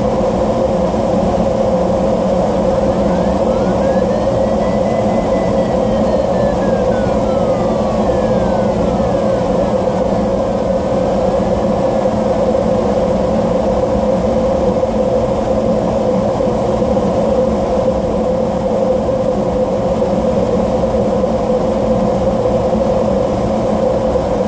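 Steady rushing airflow over the canopy inside a DG1000 glider cockpit during a fast ridge run. A faint electronic tone glides up and then back down in pitch from a few seconds in until about halfway, typical of the variometer's audio responding to lift.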